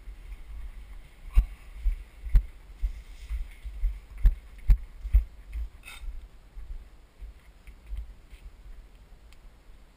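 Footsteps of a person walking, about two heavy thuds a second through the first half, then softer steps.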